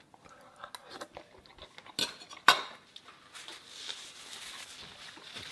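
Metal fork and knife clinking and scraping against a ceramic bowl, with two sharp clinks about two seconds in as the cutlery is set down in the bowl, then a faint hiss.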